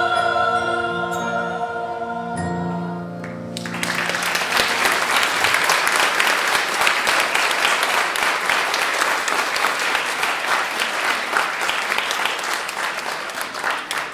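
A girls' choir with piano holds its final chord, which ends about three and a half seconds in; the audience then breaks into applause that runs on and begins to thin out near the end.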